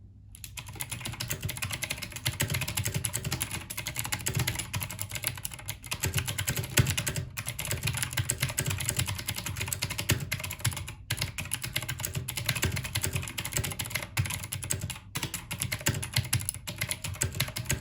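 Fast, continuous typing on a Rapoo VPRO V720S mechanical keyboard with blue switches, a dense run of loud clicky keystrokes broken by a few short pauses.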